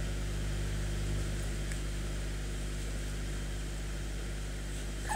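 A steady low hum with an even hiss underneath, constant throughout: the room's background noise.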